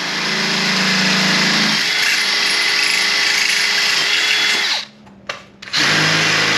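Cordless drill running as its bit bores through the aluminum frame of a solar panel, with a steady motor whine. It stops about five seconds in and starts again a second later.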